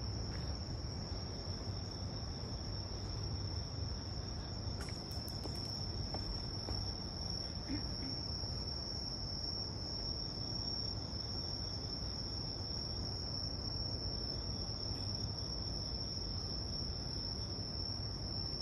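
Insects singing in one unbroken, high-pitched, steady drone, with a low rumble beneath.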